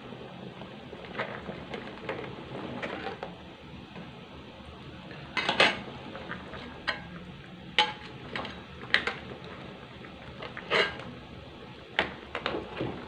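A metal spatula scraping and knocking against a metal wok while stirring crabs in a coconut-milk curry. Sharp clanks come about five and a half seconds in and then every second or so.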